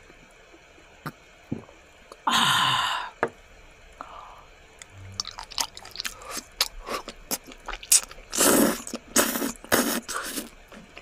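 Close-miked eating sounds of raw squid: wet mouth clicks, slurps and chewing. There is one loud breathy burst about two seconds in, and several loud slurps about two-thirds through.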